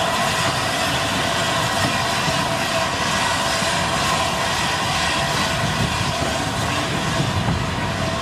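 Pullman carriages of a steam-hauled train rolling past close by: a steady rumble of steel wheels on the rails, with a few thin steady tones ringing over it.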